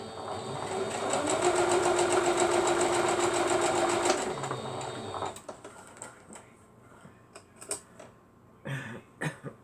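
Small electric sewing machine stitching at speed, with a motor hum and rapid even needle ticking, for about four seconds before it slows and stops. A few light clicks and handling sounds follow.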